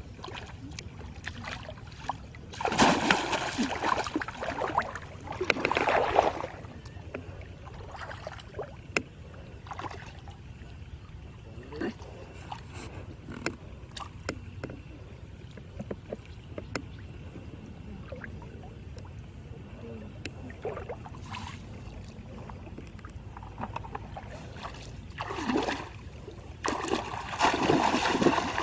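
Water splashing and sloshing in loud, noisy bursts about three and six seconds in and again near the end, with scattered small knocks and clicks between.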